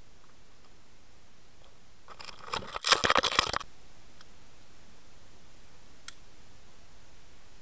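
Underwater camera housing shifting on the gravel riverbed: a burst of rapid scratching and clicking, about a second and a half long and starting about two seconds in, over a steady underwater hiss, followed by two faint ticks.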